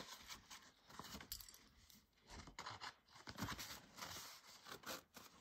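Faint rustling and scraping of fabric pieces being handled, folded and creased by hand, in short, uneven bursts.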